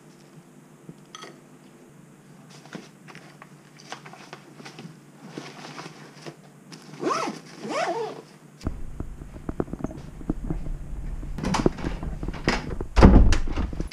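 Household handling sounds: scattered clicks, knocks and rustles as a backpack is packed, then a door being opened, with a heavy thump near the end. A low rumble comes in about two-thirds of the way through.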